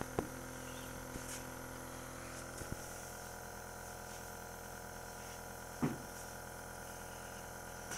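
Oxygen machine running with a steady hum while oxygen is fed by mask to a calf with breathing trouble. A few faint clicks and one brief louder sound about six seconds in.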